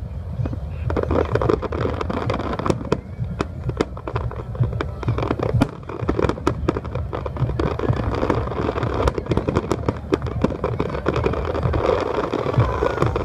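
Aerial firework shells bursting in quick succession: a dense run of sharp cracks and bangs, many close together, over a continuous low rumble.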